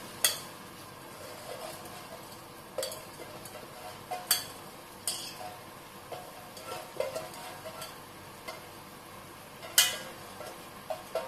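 Metal utensils clinking and scraping against a cooking pot, with about five sharp knocks, over a steady low sizzle from the masala in the pot.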